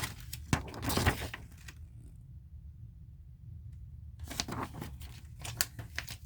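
Packing material rustling and crinkling, with a few sharp knocks, as a parcel is unpacked. It stops for about two seconds in the middle, then resumes.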